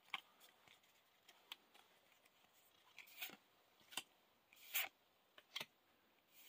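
Faint swishes and flicks of Yu-Gi-Oh trading cards being slid one by one off a small stack in the hands, about half a dozen short sounds spread out, with near silence between them.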